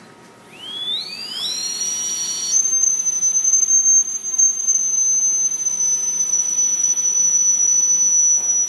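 Sonic dental handpiece starting up and running: a high whine that rises over about two seconds, then holds as a steady shrill tone while composite resin is pushed out of its curved tip.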